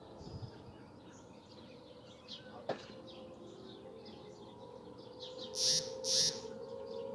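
Birds chirping over a distant outdoor tornado warning siren, whose steady wail grows louder over the last few seconds. There is a sharp click a little under three seconds in, and near the end two loud, brief noisy bursts come half a second apart.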